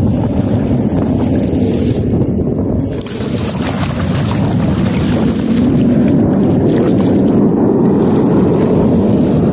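Heavy wind buffeting the microphone, a loud, steady low noise that swells slightly in the second half.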